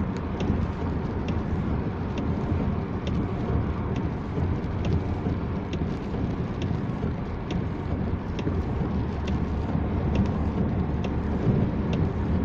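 Steady road noise inside a moving car: tyres on a wet road and the engine's low drone, with a faint tick repeating about once a second.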